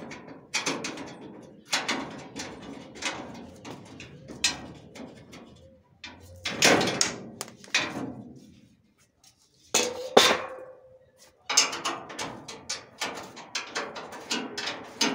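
Metal slats of a Scania L75 truck's front grille clanking and rattling as the grille is worked loose by hand, with repeated knocks. One loud clank about ten seconds in rings briefly.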